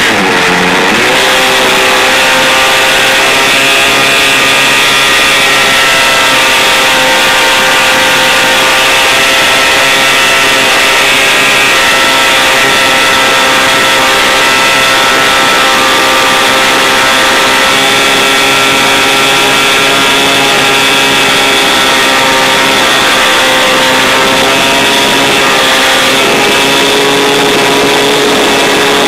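Light airplane's piston engine and propeller droning steadily in flight, heard from a device taped to the outside of the airframe, with heavy wind rush over the microphone. The engine note dips briefly right at the start, then holds steady.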